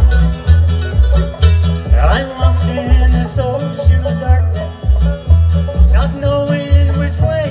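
Bluegrass band playing: banjo and acoustic guitar over an upright bass keeping a steady beat of about two low notes a second, with a couple of sliding notes rising in pitch.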